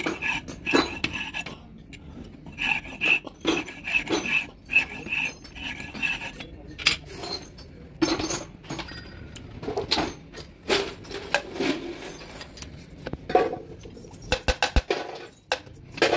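Steel valves clinking and scraping against their seats and guides in a diesel engine cylinder head as they are worked by hand: irregular sharp metallic clicks and rasps, with a quick run of clicks near the end.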